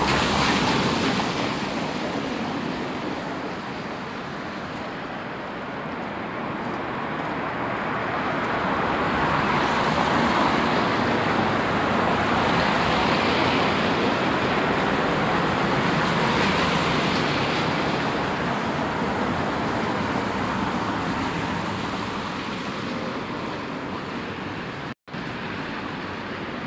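Traffic on a wet city street in the rain: tyres hissing on wet asphalt as vehicles pass, swelling near the start and again for several seconds in the middle, over a steady wash of rain. The audio cuts out for an instant near the end.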